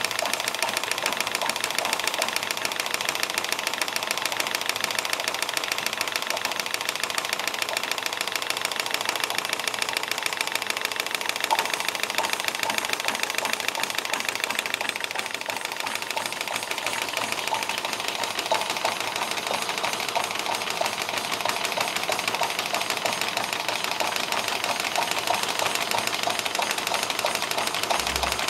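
Stuart D10 twin-cylinder model steam engine running fast under steam, a rapid, even beat of exhaust chuffs and mechanical clatter as it belt-drives a small generator.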